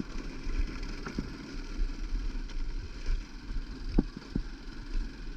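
Hartford VR 150 motorcycle riding over a rough dirt road: a steady low engine rumble under wind noise on the camera microphone, with a few sharp knocks, about a second in and twice around four seconds.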